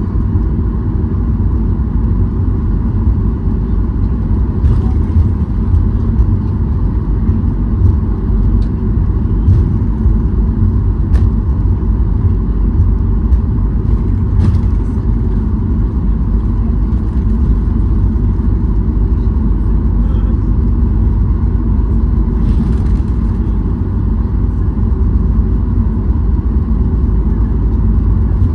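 Boeing 737-800 cabin noise during taxi, heard from inside over the wing: a steady low rumble from the CFM56-7B engines at taxi power as the airliner rolls along the taxiway.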